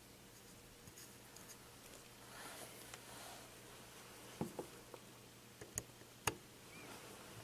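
A few faint sharp clicks and taps of small parts being handled at a workbench, after a brief soft rustle.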